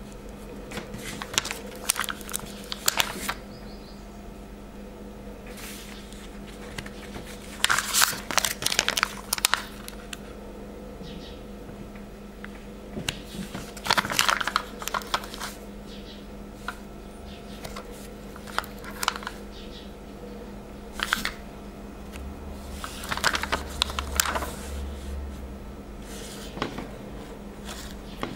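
Puffy foam stickers being peeled off a glossy plastic backing sheet and pressed onto paper: short bursts of crinkling and crackling every few seconds, over a steady low hum.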